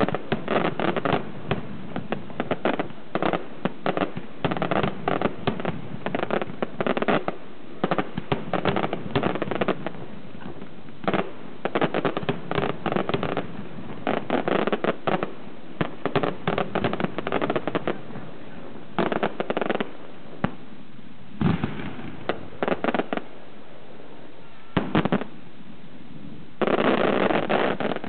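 Aerial firework shells bursting in rapid volleys with crackling, in dense clusters broken by a few short lulls. A thick flurry of crackling comes near the end.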